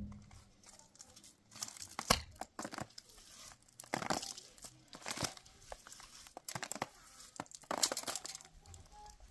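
Crinkling and tearing of material in short irregular bursts, several seconds apart.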